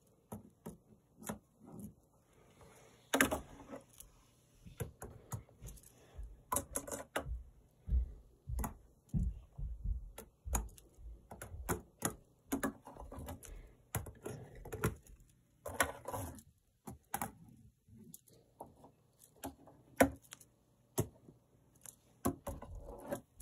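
Tech Deck finger BMX bike clattering on a hard surface during finger tricks: a run of irregular small clicks, taps and knocks as its wheels and frame hit down.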